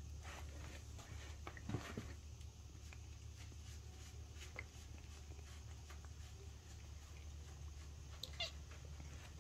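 Cats eating pieces of chicken breast from a hand: small scattered chewing and biting clicks, with a short meow about two seconds in, over a steady low hum.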